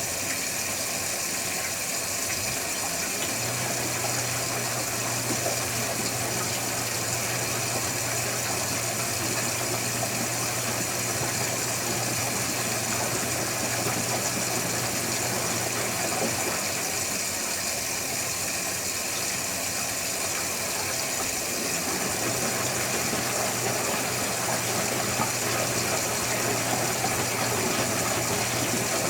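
Electrolux Wascator W355H commercial washing machine running a wash. The drum motor hums steadily, stops for several seconds about halfway through and then starts again, the pause typical of the drum reversing direction. A steady noisy background runs under it.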